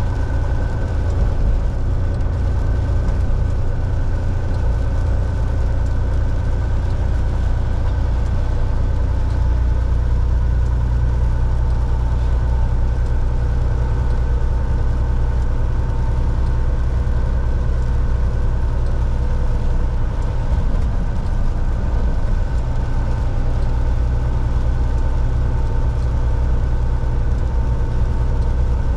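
Semi-truck's diesel engine running while driving, heard from inside the cab as a constant low drone with a few steady higher tones above it.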